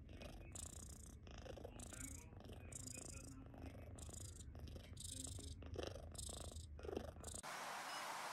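Sleeping cat purring: a faint, steady low rumble that pulses about once or twice a second with its breathing. About seven seconds in it cuts off abruptly to a steady hiss.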